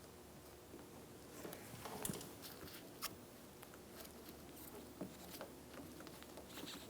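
Faint scratching and a few scattered light clicks as hands work a new door-handle gasket and handle parts on a car door. The clearest clicks come about two, three and five seconds in.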